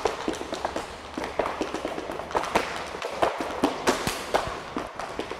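Two dancers' tap shoes striking a plywood board in rapid, uneven runs of sharp taps.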